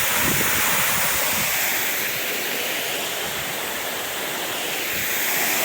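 Waterfall rushing: a steady wash of falling water, dipping slightly in loudness midway.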